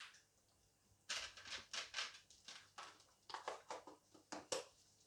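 A quick, uneven run of short rustling and scraping noises from kitchen handling, about four a second, starting about a second in and stopping near the end.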